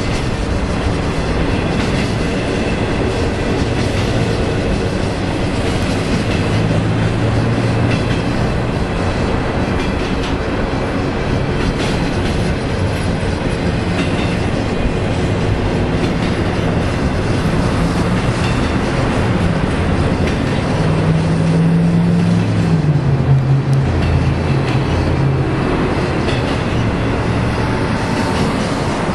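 Westbound BNSF freight train of empty intermodal flatcars rolling past on the climb, a steady rumble of wheels on rail. A low hum swells up twice along the way.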